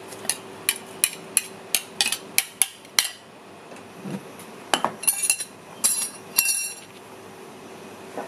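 Metal ladle tapping and scraping against a bowl, knocking pounded fish paste into a pot: quick clinks about three a second for the first few seconds, then a few scattered clinks.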